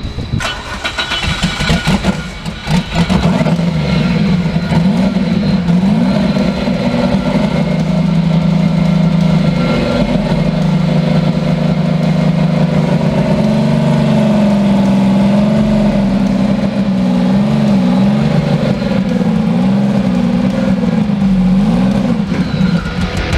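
Turbocharged Ecotec V6 engine catching and settling into a loud, steady run after an uneven first few seconds; from about halfway on its speed wavers up and down.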